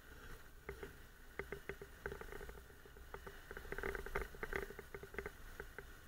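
Irregular clattering clicks and knocks as a Honda NC750X motorcycle rides over a rough dirt lane, the camera and its mount rattling on the bumps, busiest a little past halfway, over a low rumble.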